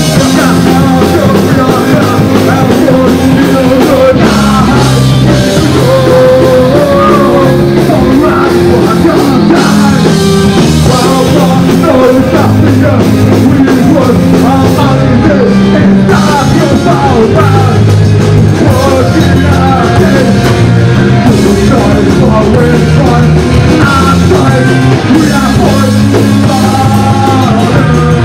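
Live rock band playing loudly, with a singer over electric guitar, bass and drum kit.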